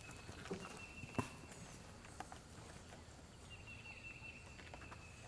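Faint handling of gear inside a backpack: light rustling and a sharp click about a second in. Under it lies a quiet outdoor background with a thin high note that comes and goes.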